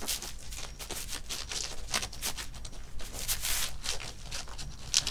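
A disposable pet pad rustling and crinkling in quick, irregular scrapes as a two-week-old kitten crawls and paws across it.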